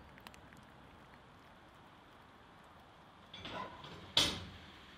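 Faint, scattered crackling from a forge fire, then a brief scraping rustle about three and a half seconds in and a single sharp knock just after four seconds.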